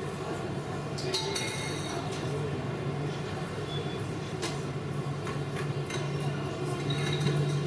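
Airport ambience: a steady low hum and rumble, with faint voices and a few light clinks.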